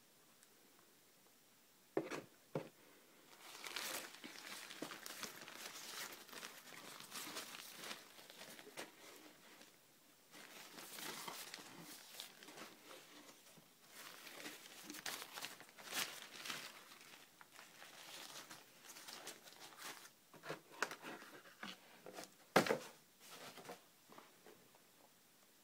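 Tissue paper crinkling and rustling as it is handled in a shoebox, with a pause partway through. There are two sharp knocks about two seconds in and a louder knock near the end.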